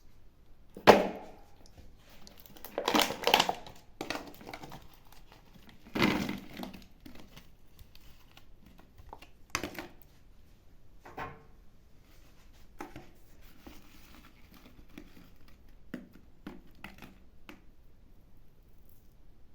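Plastic wrapping crinkling and tearing in scattered bursts, with a few sharp knocks; the loudest burst comes about a second in, and the rest fade to small rustles and clicks.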